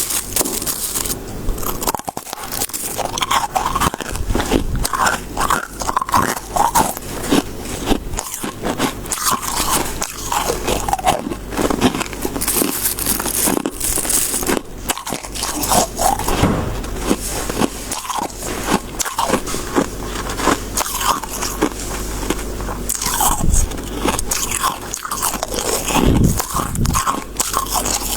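Close-miked biting and chewing of crisp freezer frost: dense, irregular crunching and crackling of icy flakes breaking between the teeth.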